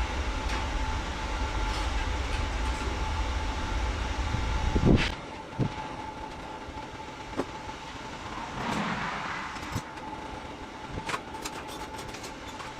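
An air compressor running with a low rumble, cutting off abruptly about five seconds in. After that come scattered light metallic clinks of hand tools, several in quick succession near the end.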